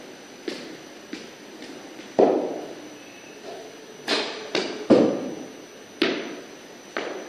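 Sharp knocks of a cricket ball off bat, pitch and the concrete walls of a practice net, each with a short echo. There are about nine in all, the loudest about five seconds in.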